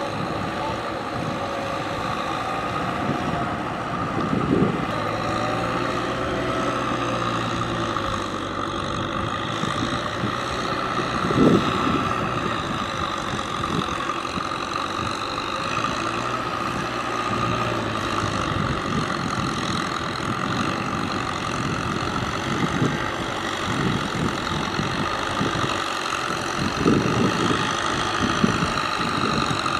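Diesel farm tractor engine running steadily as it works a flooded, muddy rice field with a front blade, with a few brief thumps.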